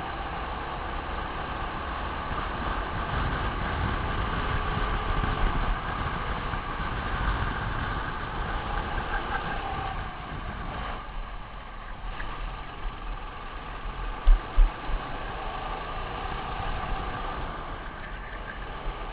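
Racing kart engine heard onboard, running at high revs with its note wavering up and down, over a low rumble of wind and vibration on the camera. The engine drops back for a couple of seconds about eleven seconds in, and two sharp thumps come about three seconds later.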